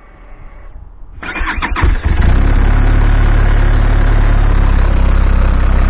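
Benelli TRK 502's parallel-twin engine turned over by the electric starter for under a second, catching about two seconds in and settling into a steady idle. This is the first run after an oil change, done to fill the new, empty oil filter.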